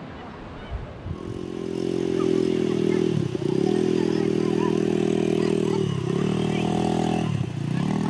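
Quad bike (ATV) engine running at steady revs, dropping sharply in pitch three times as the throttle is eased off and then picking straight back up.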